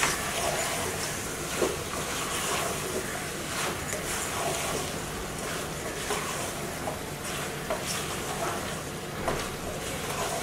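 Wooden spatula stirring raw chicken pieces and coconut strips in a cooking pot: repeated scraping strokes against the pot, roughly once a second, over a steady hiss.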